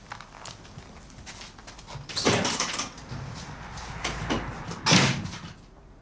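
A door being opened and shut: two loud noises about two and a half seconds apart, with smaller knocks around them.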